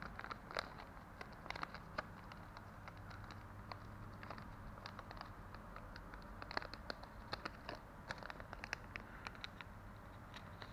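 Small plastic bags holding LED strips crinkling and rustling as they are handled, in scattered faint crackles and clicks that come in clusters.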